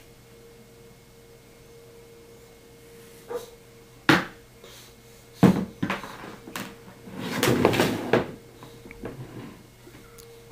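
Hollow plastic child's chair knocking against a wooden tabletop as it is lifted up onto it: a few sharp knocks, then about a second of rubbing and scraping, and a few lighter taps near the end.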